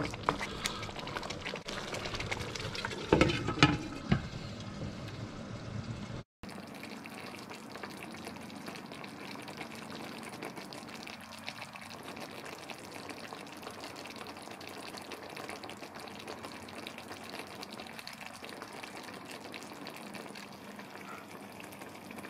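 A wooden spoon stirs and scrapes chicken coconut curry in a wok, with a few louder knocks about three to four seconds in. After a break about six seconds in, the curry simmers in the pan with a steady bubbling.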